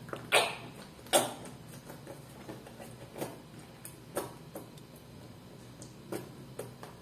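A handful of sharp, unevenly spaced clicks and crackles from a cardboard carton of table cream being squeezed and tipped as the cream is poured into a saucepan. The two loudest come in the first second and a half.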